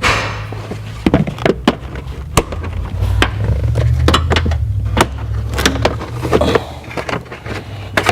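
Plastic interior trim on a car's seatbelt pillar being worked loose by hand: irregular sharp clicks and knocks of plastic panels and clips, over a steady low hum.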